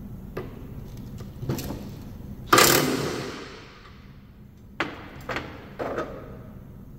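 Cordless impact wrench running in one short, loud burst about two and a half seconds in as it breaks loose and spins off the 15/16 mower blade bolt, its sound fading out over a second or so. Near the end, three sharp metal clunks as the tool and parts are set down on the steel mower deck.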